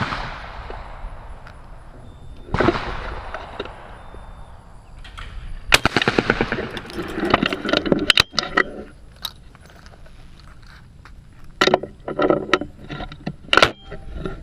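Two shots from a Browning Citori 12-gauge over-and-under shotgun, about two and a half seconds apart, each with a short ringing tail. They are followed by two spells of rapid clicks and knocks from the gun being handled.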